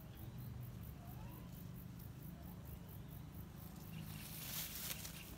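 Insects ticking rapidly and evenly in the grass, with a brief rustle of grass stems about four seconds in as a cat moves through them.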